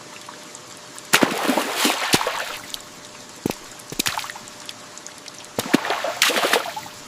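Water splashing in two bursts, about a second in and again near six seconds, over a faint steady hiss of light rain.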